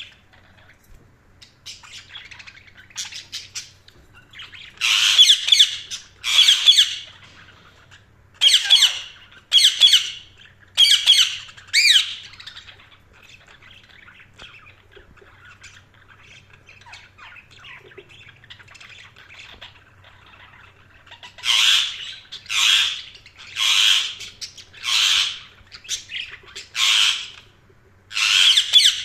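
Budgerigars calling: loud, harsh squawks about a second long, in a run of several calls a few seconds in and another run about twenty seconds in, with soft chattering in between.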